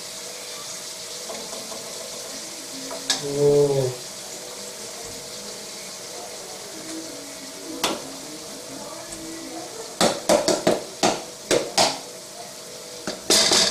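Pork mince sizzling in a steel wok with tomato sauce, a steady hiss over a faint hum. Near the end comes a quick run of sharp clicks and knocks, about four a second.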